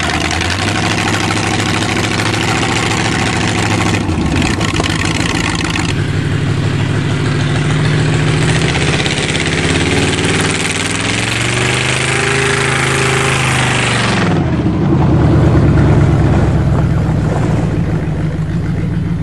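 The Cheviac's carbureted car engine running with a steady drone. Its revs rise for a couple of seconds and then drop back to idle about 14 seconds in. A steady hiss under the engine cuts off suddenly at that moment.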